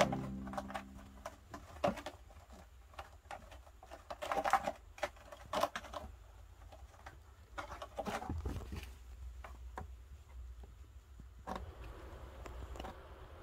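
A kitten's claws scratching and catching on the sisal rope of a cat tree as it clambers and plays: irregular soft scratches and taps, with a few louder flurries.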